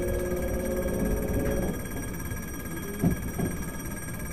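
Cab noise of a Tokyu 7700 series commuter train, heard from the front cab: a low rumble with two steady tones that fade out about a third of the way in, leaving a quieter hum with a couple of short knocks near the end.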